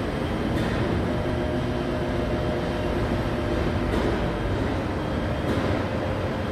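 Truck-mounted telescopic crane running at work: a steady mechanical rumble with a faint whine that sets in about a second in, and a couple of light knocks.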